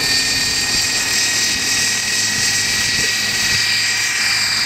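Radio-controlled scale Bell 47 model helicopter lifting off the grass into a low hover. Its motor and rotors give a steady high whine that rises slightly in pitch, over a low hum, with wind buffeting the microphone.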